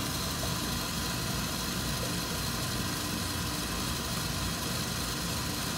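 Stand mixer's motor running steadily at high speed, its whisk attachment whipping egg whites toward soft peaks.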